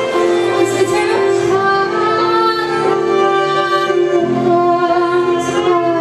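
A band playing live, with a voice singing long held notes over the instruments.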